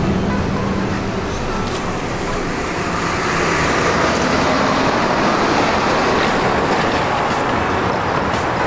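Steady rushing road-traffic noise, growing a little louder about three seconds in.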